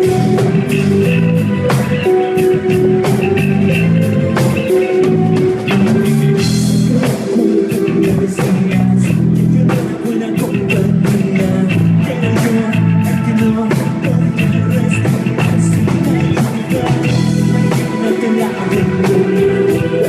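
Rock band playing live, a drum kit keeping a steady beat under sustained guitar notes.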